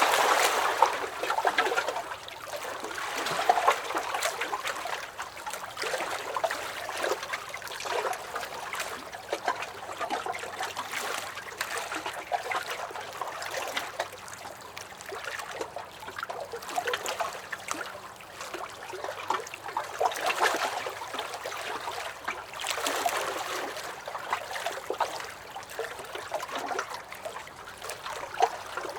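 Small lake waves lapping and splashing against a dock, a steady run of little slaps and trickles that swells and eases every few seconds.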